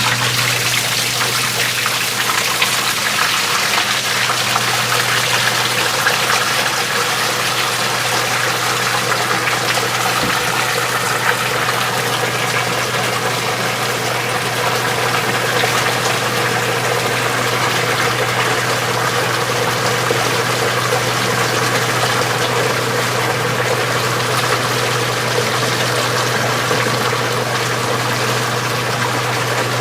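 Old washing machine running: a steady low motor hum with water churning in the tub, unchanging throughout.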